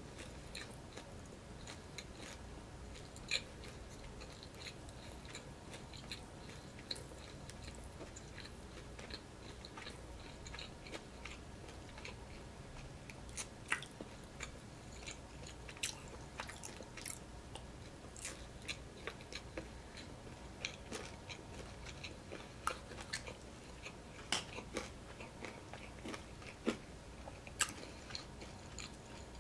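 A person chewing a fried appetizer with the mouth, with many short, sharp wet clicks and crunches scattered irregularly throughout.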